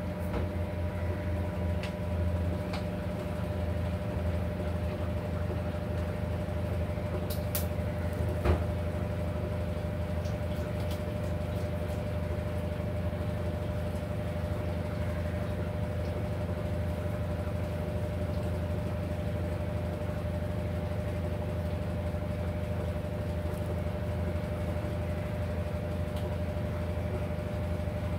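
Steady low hum of a running motor or appliance, with one sharp click about eight and a half seconds in.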